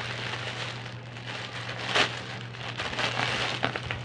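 Plastic courier mailer bag crinkling and rustling as it is pulled and torn open by hand, with a sharp, loud crackle about halfway through and more quick crackles near the end.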